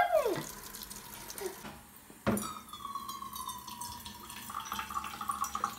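Kitchen mixer tap running a thin stream of water into a stainless-steel sink, with a brief rising-and-falling tone at the very start. After a knock a little over two seconds in, the water runs into a metal cup and rings with a steady tone that sinks slightly as the cup fills.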